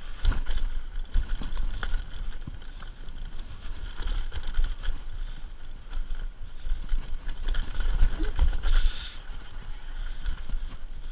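Mountain bike speeding down a steep dirt trail: tyres running over dirt, roots and rocks, with frequent rattles and knocks from the bike and wind rumbling on the camera's microphone. A brief hiss comes about nine seconds in.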